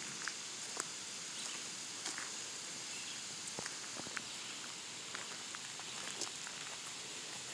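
Footsteps crunching on a trail, irregular ticks and scuffs over a steady high outdoor hiss.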